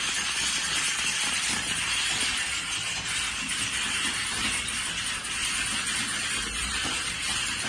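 Many computer keyboards being typed on at once, a dense, steady clatter of overlapping keystrokes with no single key standing out.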